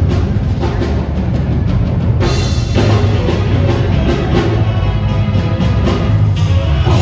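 Loud show music with heavy drums and a steady beat.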